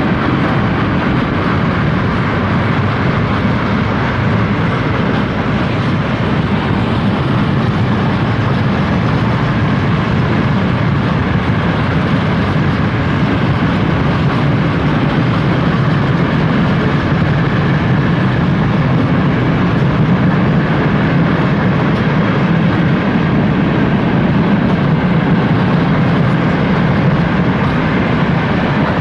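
Freight train of wagons loaded with steel plate and steel coils rolling past, a steady, unbroken noise of wheels running on rails.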